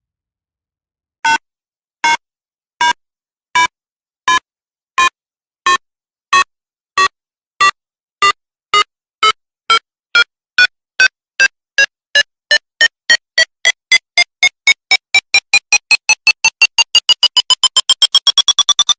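Electronic bomb-timer beeps as a sound effect: starting about a second in, short pitched beeps repeat faster and faster and climb in pitch until they almost run together, the countdown to a detonation.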